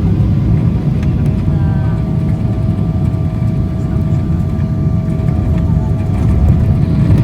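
Airliner cabin noise during landing: a steady low rumble with a faint steady engine whine above it, growing a little louder near the end.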